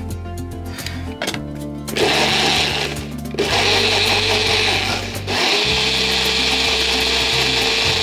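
A personal bullet-style blender's motor runs, chopping fruit pieces and water into a pulp. It starts about two seconds in after a few clicks, stops twice for a moment and runs on with a steady whirring hum. Background music plays throughout.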